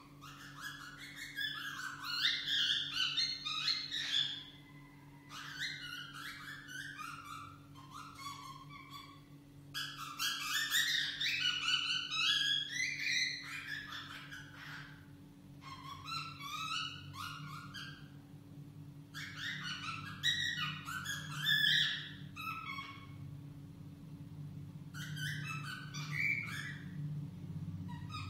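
Cockatiel whistling and warbling a rambling song of its own, made of quick chirpy notes that slide up and down. It comes in bouts of a few seconds each, about six of them, with short pauses between.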